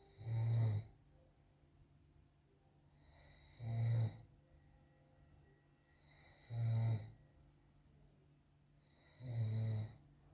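A man snoring in his sleep: four loud snores at a regular pace, about three seconds apart, each lasting around half a second.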